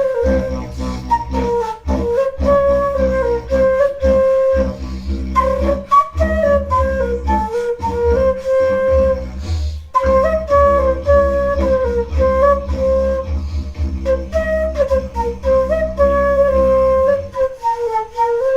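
Music: a flute-like lead melody moving in short phrases over a deep bass and a busy beat of short percussive hits.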